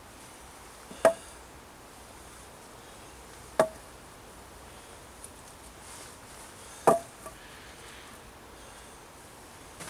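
Cut sycamore poles knocking sharply against each other and the log bed frame, three separate wooden knocks a few seconds apart, as slats are laid onto a bushcraft log bed.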